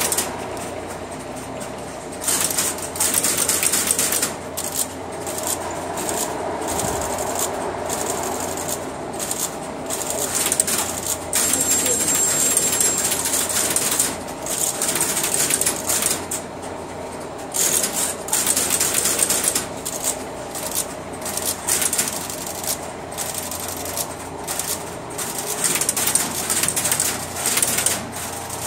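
Relays and crossbar switches of a Western Electric No. 5 crossbar telephone switch clicking and clattering in dense, irregular bursts as the switch works. The switch is throwing a lot of marker advances, and the volunteers guess it just needs to wake up after being shut off.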